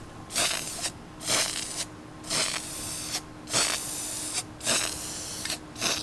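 Aerosol spray-paint can spraying touch-up paint in about six short hissing bursts, each under a second, with brief pauses between.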